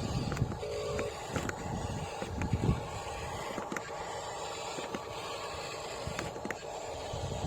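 Radio-controlled model construction machine's small electric motor and gears whining steadily, with irregular low knocks and crunches and a few sharp clicks from the machine working in dirt.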